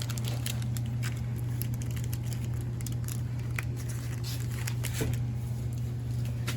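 Candy bar wrapper being handled and crinkled: scattered light crackles and clicks over a steady low hum.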